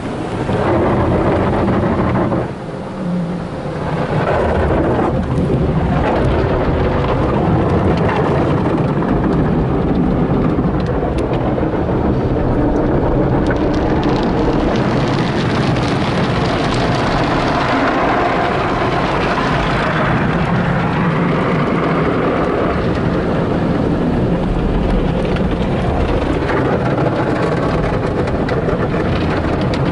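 Tunnel car wash heard from inside the car's cabin: soft-cloth wash material scrubbing and slapping against the body and glass, with water and soap spraying onto the car. A steady, loud wash noise, briefly quieter a few seconds in.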